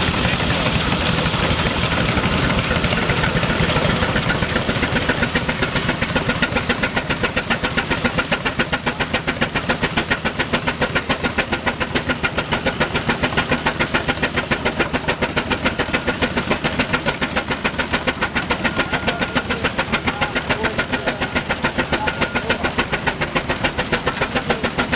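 Steam traction engine working under load, belted to a dynamometer: its exhaust beats come as a quick, even rhythm of chuffs. In the first few seconds a hiss is heard, and then the beats sharpen and stand out clearly.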